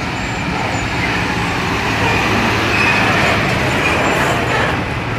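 Diesel engine of a container tractor-trailer running as the truck drives slowly past close by, a steady low rumble with traffic noise behind it.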